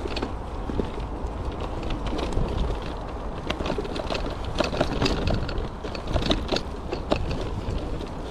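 Electric bike ridden over rough ground: a steady wind rumble on the microphone, with frequent irregular clicks and rattles from the bike and tyres over bumps.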